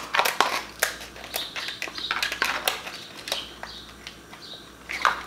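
Kitchen scissors snipping through cooked lobster shell, with shells cracking: a run of sharp, irregular cracks and crunches, several a second.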